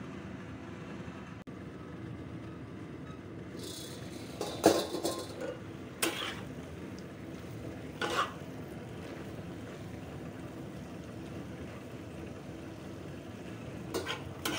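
A braise simmering in a pan over a gas burner gives a steady low hiss. A spatula clanks against the pan four times, at about 5, 6, 8 and 14 seconds, as the contents are stirred.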